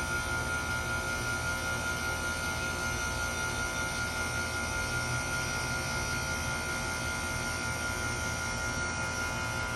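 Two 2-ton Lennox Merit Series heat pump outdoor units running through a defrost cycle: a steady mechanical hum with a constant high tone over an even rushing noise.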